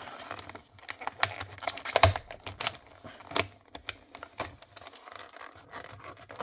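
Plastic blister packaging of a small diecast car being worked open by hand: irregular clicks, crackles and scrapes of stiff plastic and card. The loudest crack comes about two seconds in.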